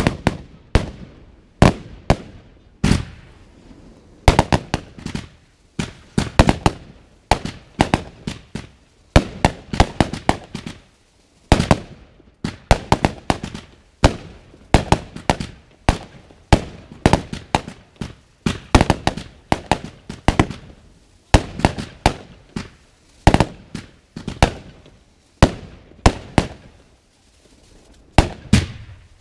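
Fireworks going off: rockets and aerial bursts make a rapid, irregular series of sharp bangs, each with a short fading tail. There is a brief lull near the end.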